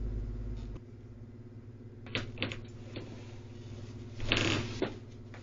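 Faint movement noises from someone walking about and handling things: a few soft clicks about two seconds in and a short scuffing noise a little after four seconds, over a steady low hum.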